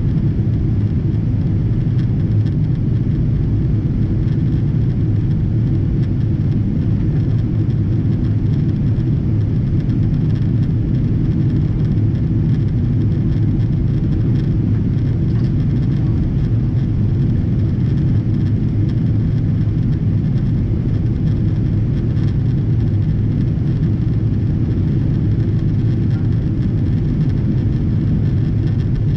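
Steady low rumble of a Boeing 777-200ER's Rolls-Royce Trent engines heard inside the passenger cabin, holding an even level throughout.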